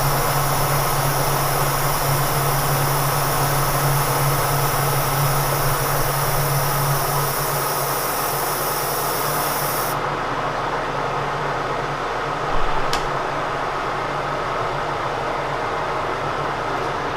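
Kearney & Trecker milling machine running a finishing cut with a 6-flute finishing end mill, a steady mechanical hum with a high hiss over it. The hiss cuts off suddenly about ten seconds in, the hum fades as the cut ends, and there is one sharp click near the end.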